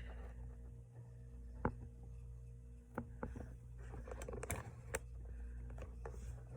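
Scattered light clicks and taps from a ruler and cloth being handled on a cutting mat, over a steady low hum.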